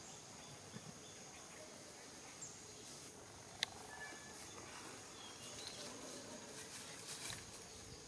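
Faint outdoor ambience: a steady high insect drone over soft rustling in dry leaf litter, with one sharp click a little past halfway and a few short faint chirps.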